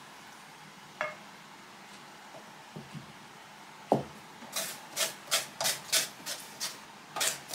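Kitchen utensil scraping on a wooden surface in a quick run of short strokes, about three a second, starting after a single knock about four seconds in.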